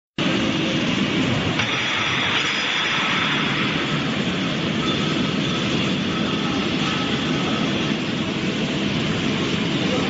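Air-bubble vegetable washing machine running: water churning and splashing hard in its stainless steel tank under the spray bars, a steady rushing noise with a faint machine whine in it. It starts abruptly just after the beginning.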